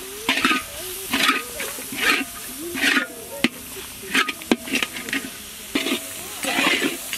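Long metal ladle scraping and stirring spices and oil around a large kadai, a rasping scrape with a metal click about once a second, over steady frying sizzle.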